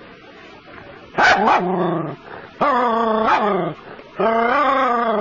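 Small terrier barking at a snake in the water: three long, drawn-out barks of about a second each, the first about a second in.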